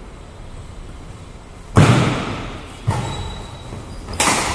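Badminton rackets striking the shuttlecock in a doubles rally: three sharp hits, about a second apart, the first the loudest, each echoing in the metal-walled hall.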